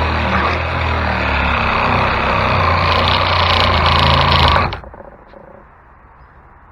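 Electric power saw cutting at full speed, then cutting off abruptly nearly five seconds in.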